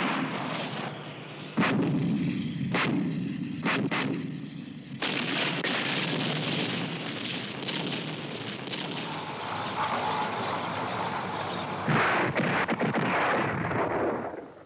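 Military shells exploding in quick succession: several sharp blasts in the first five seconds, continuous rumble between them, another loud blast about twelve seconds in, then the sound cuts off just before the end.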